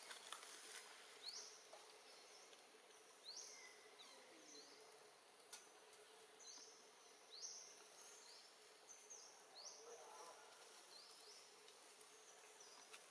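Faint forest ambience with a repeated series of short, high chirps, each sliding quickly in pitch, coming every second or two over a soft steady hiss.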